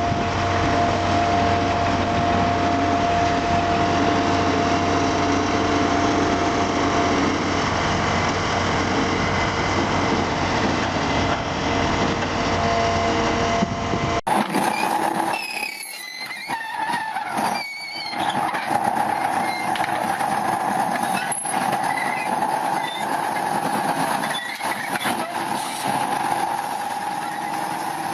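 Heavy machinery running: first a steady engine drone with a held whine, then a sudden cut about fourteen seconds in to another machine working, its engine noise uneven with brief squeals and knocks.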